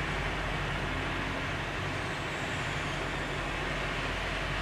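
Steady rushing noise with a faint low hum underneath, even throughout with no distinct events.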